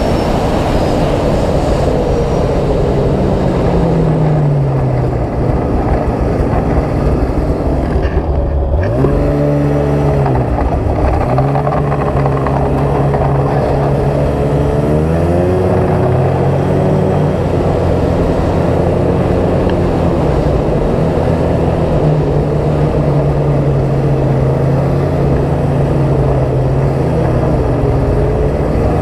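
Polaris XCR 800 Switchback snowmobile's two-stroke twin engine running under way over a steady rush of noise. Its pitch slides down about four seconds in, drops away briefly as the throttle is let off about eight seconds in, then climbs again and rises and falls several times.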